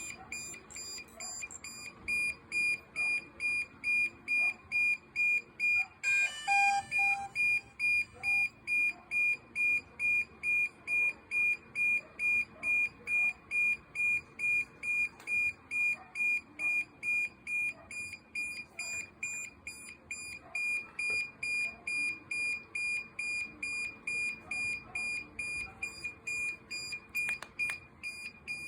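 DJI Mavic Air 2 beeping over and over, about two high-pitched beeps a second, with a short run of quick stepped tones about six seconds in.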